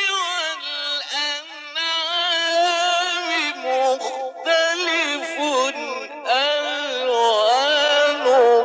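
Male Quran reciter chanting in a slow, melodic style: long ornamented notes that waver up and down, held and drawn out, with a few brief breaks for breath.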